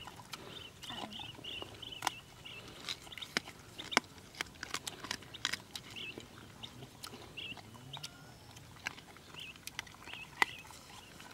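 Two dogs eating scraps from a wicker basket: irregular chewing and crunching clicks, with a small bird chirping faintly now and then.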